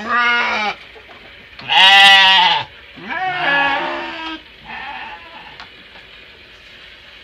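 Garut sheep bleating: four bleats in the first five seconds, the loudest about two seconds in and the last one fainter.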